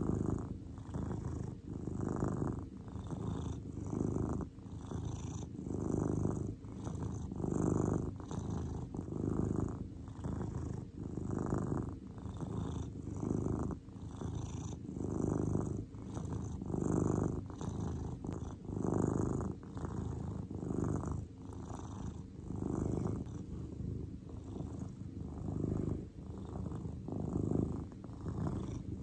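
Domestic cat purring steadily, the purr swelling and easing in a regular rhythm with its breathing, a stronger swell roughly every two seconds.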